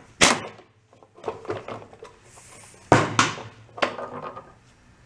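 Knocks and rattling clatter of tools and parts being handled while a wheel is taken off a Toro Personal Pace lawn mower. The three loudest knocks fall near the start, about three seconds in, and just before four seconds.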